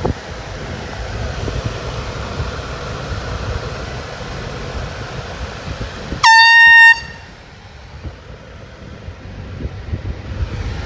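A handheld air horn sounds one loud, high-pitched blast lasting under a second, about six seconds in; it is by far the loudest thing. Under it runs a steady outdoor rumble of wind noise.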